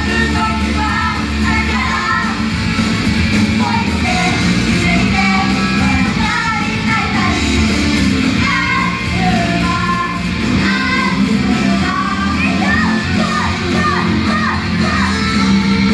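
A loud live rock-style idol pop song: group vocals sung over a heavy backing track with driving guitars and drums.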